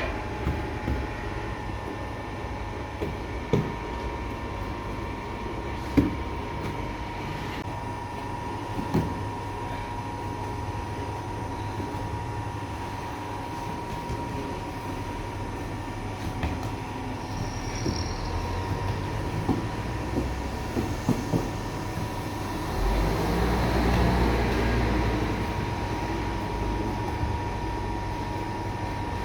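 Steady hum of bakery machinery with a constant whine, over a low rumble, with scattered knocks and clatter of work. The rumble swells for a few seconds near the end.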